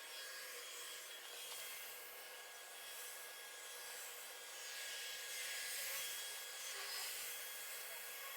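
Robot vacuum cleaner running: a steady motor whine with its brushes rubbing over the floor, growing louder about five seconds in and easing again near the end.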